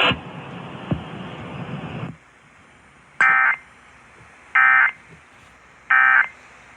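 Emergency Alert System end-of-message code on an FM radio broadcast: after about two seconds of hiss, three short, identical warbling data-tone bursts about a second and a half apart, the signal that closes the alert.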